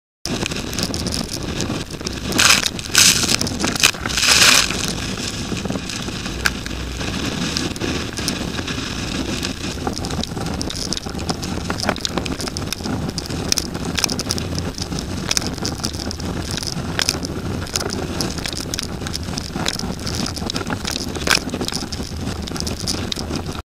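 Gale-force wind, about 50 knots, blasting a windsurf board's camera microphone, over the rush of water and spray as the board sails fast through chop. Louder crashing surges of spray come about two to four and a half seconds in, and later short slaps come now and then as the board hits the chop.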